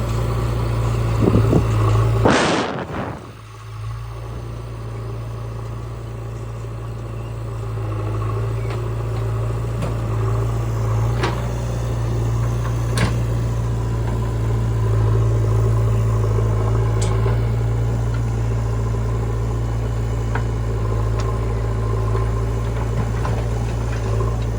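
Diesel engine of heavy machinery running steadily, with a brief loud rush about two and a half seconds in and a few sharp knocks scattered later.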